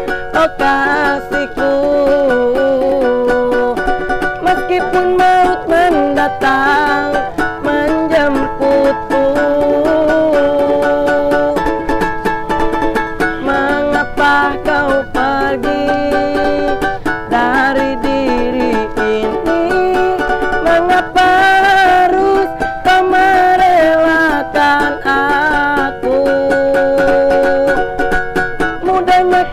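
A street busker singing a song, accompanied by a strummed string instrument.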